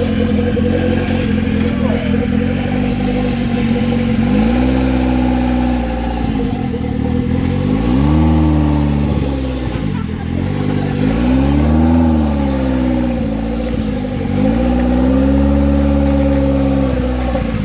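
Honda N600's air-cooled two-cylinder engine being cranked on the starter, catching and speeding up, then sagging back, four times over without settling into a run.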